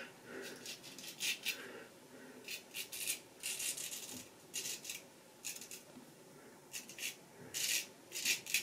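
A vintage restored Nashville Barber Supply Kaeser's No. 402 straight razor scraping through lathered stubble in short strokes, about a dozen crisp rasps with brief pauses between them.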